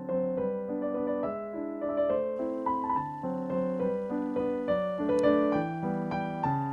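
Background instrumental music on piano: a melody of held notes over chords, changing about twice a second.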